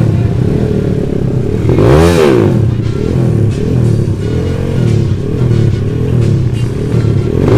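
Honda CB motorcycle engines being revved hard: one big rev rises and falls about two seconds in, then a string of short throttle blips, and another rev climbs near the end.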